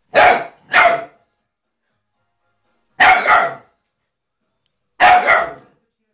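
Ten-week-old Siberian husky puppy barking at a plastic bottle it is scared of: two quick barks, then more about three seconds and about five seconds in.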